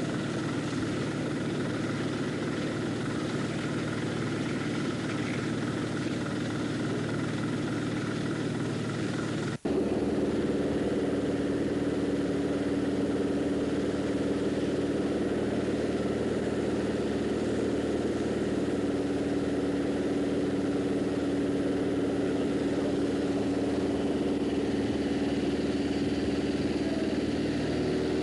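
Fire engines' motors running steadily at the fireground, driving the pumps that feed the hose lines. The sound breaks off for an instant about ten seconds in, then carries on a little louder.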